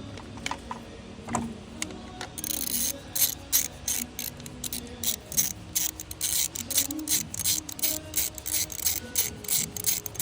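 Ratchet wrench clicking in quick, uneven runs as a fastener is turned, starting a couple of seconds in.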